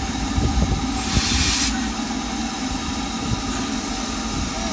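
Steam hissing steadily from the LMS Royal Scot class 4-6-0 steam locomotive 46100 as it stands with steam up, over a low rumble. A louder, sharper gust of hiss comes about a second in and lasts about half a second.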